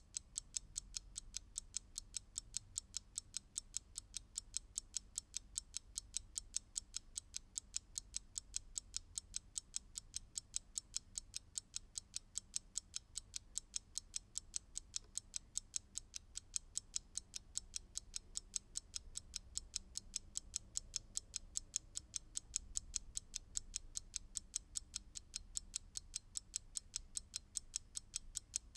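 Mechanical clock ticking fast and evenly, several sharp, crisp ticks a second.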